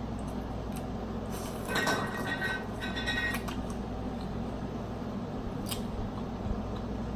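Snow crab shell being broken open: a short stretch of cracking and squeaky crunching about two seconds in, over a steady low hum.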